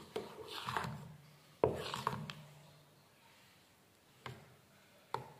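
Steel spoon scraping and knocking against the sides of a steel bowl while stirring a thick milk-powder batter, with a few sharp taps spread through.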